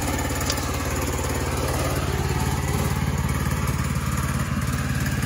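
Portable sawmill's engine running steadily at an even speed.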